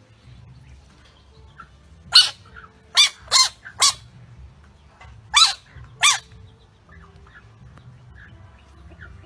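A large frog giving short, sharp distress squeaks while a dog noses it: six calls, each rising and falling in pitch, in a quick run about two to four seconds in and two more about five to six seconds in.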